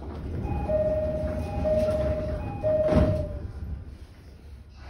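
Door-closing chime inside a JR East 209-500 series commuter car: a two-note chime sounds three times, about a second apart, then the sliding doors thud shut about three seconds in.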